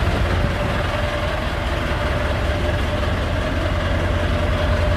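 Perkins turbo diesel engine of a Chevrolet D20 pickup idling steadily: an even low diesel rumble with a thin steady tone running above it.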